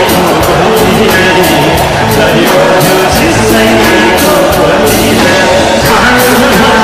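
Live rock band playing loudly, with electric guitar, bass guitar and drum kit and a male singer's voice over them; steady cymbal and drum strokes run through it.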